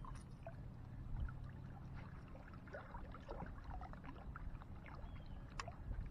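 Small lake waves lapping and splashing against shoreline rocks, many little irregular splashes over a low rumble, with one sharp tick about five and a half seconds in.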